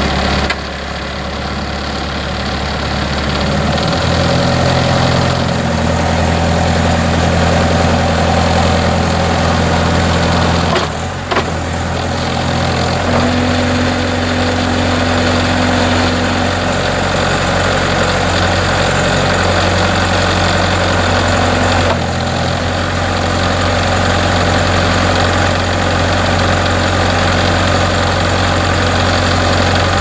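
Kubota V2203 four-cylinder diesel engine of a Bobcat S130 skid steer running steadily, its speed rising about four seconds in, while the hydraulics raise and lower the loader's lift arms.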